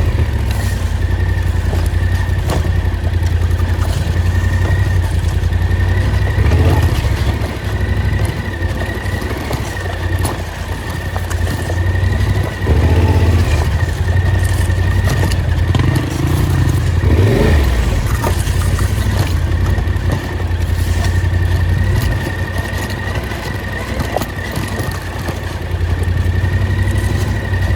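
Off-road vehicle engine running steadily while driving over rough forest track, with a deep rumble, a steady high whine and scattered knocks and rattles.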